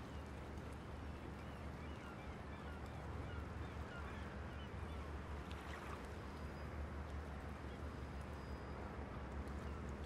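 Outdoor waterside background: a steady low hum under a noisy wash, with many faint short bird chirps.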